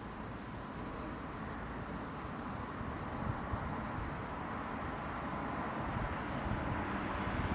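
Steady outdoor background noise, a low rumble with hiss that slowly grows louder. A faint, thin high tone sounds for a couple of seconds near the start.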